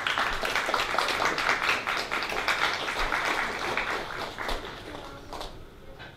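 Audience applauding, a dense run of hand claps that slowly thins and dies away towards the end.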